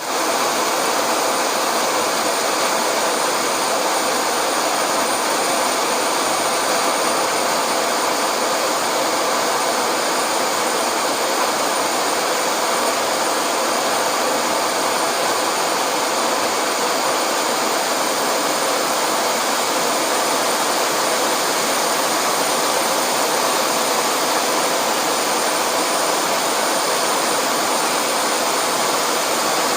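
Jet airliner engines running steadily, an even rushing noise with a thin high whine that does not change for the whole stretch.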